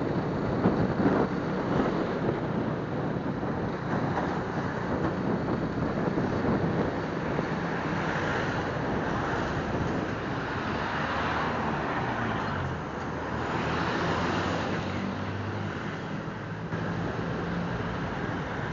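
Wind rushing over the microphone of a moving motorcycle, with the low hum of a Suzuki Smash 115's small four-stroke single-cylinder engine underneath. The engine's pitch steps up and down as the throttle changes.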